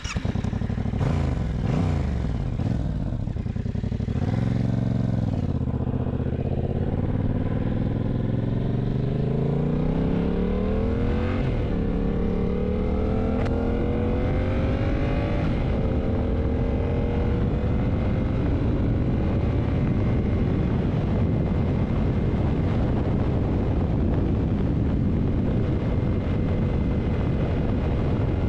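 Yamaha MT-07's parallel-twin engine pulling away, rising in pitch through the gears with two upshifts, then holding a steady cruise from about twenty seconds in.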